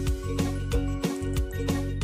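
Background music with a steady beat of about three strokes a second over held tones.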